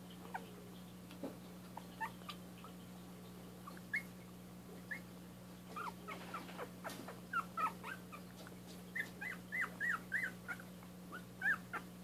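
Young dachshund puppies squeaking and whimpering in short, high-pitched cries, sparse at first and coming thick and fast in the second half. A steady low hum runs underneath.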